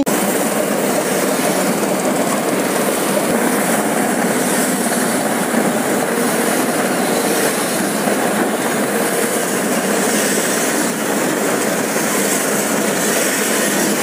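Maskeen M-21 tractor-mounted mini combine harvester running while it cuts and threshes rice: a steady, even mechanical din with no change in pace.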